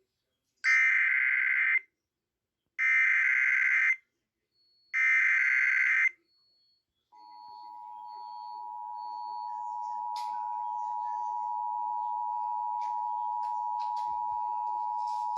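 Emergency Alert System SAME header: three bursts of shrill data tones, each about a second long and about a second apart. About a second after the last burst the EAS two-tone attention signal begins, a steady two-note tone that swells in level over its first few seconds and then holds. The pair marks the start of a new warning.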